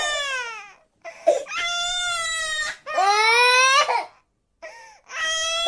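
A cartoon child character crying: several long, high wails, each held for about a second, with short sobbing catches of breath between them.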